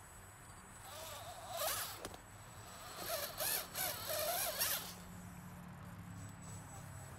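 RC4WD Bully 2 rock crawler's dual brushed electric motors and gears whining in short bursts as it climbs over boulders. The pitch wavers up and down with the throttle from about one second in until near five seconds.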